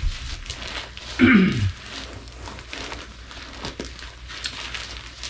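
Rustling and crinkling of the packed reserve parachute and its container pocket as they are pushed and tucked in by hand, with a short falling voice-like sound about a second in.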